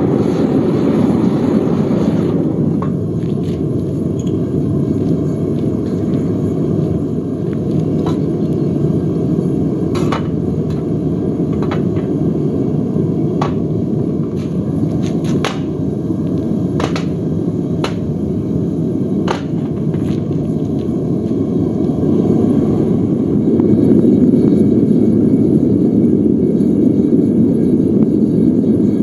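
Gas burner firing into a home-built barrel furnace to melt a crucible of brass scrap: a steady loud rumble, with sharp ticks now and then.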